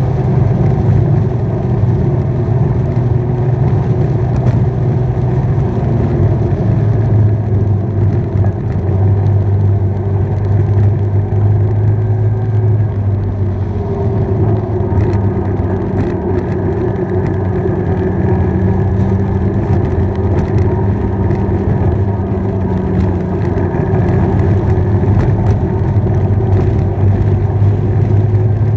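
Motorcycle engine running steadily at road speed, its note shifting slightly a few times, around 7 and 14 seconds in.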